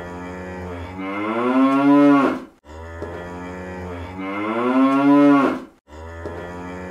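Cow moo sound effect dubbed over speech to blank it out: the same recorded moo plays over and over, about every three seconds. Each moo swells louder and rises slightly in pitch toward its end, then cuts off, and a third one starts near the end.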